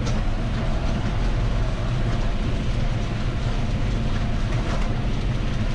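John Deere tractor with a front loader driving along a cobblestone road, heard from inside the cab: the engine runs steadily under a continuous rumble of the tyres on the cobbles.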